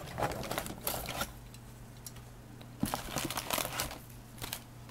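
Plastic model-kit parts and their box being handled: light clicks and rustles in two short spells, the first at the start and the second about three seconds in.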